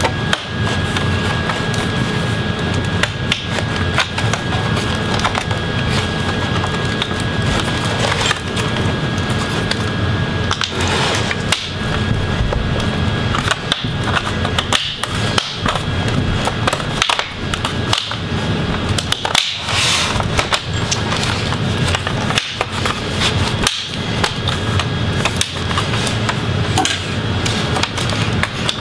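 Plastic snap clips of an MSI GE72VR laptop's bottom cover clicking and cracking as a flat pry tool is worked along the seam between the bottom case and the palm rest. The clicks come one by one, scattered throughout.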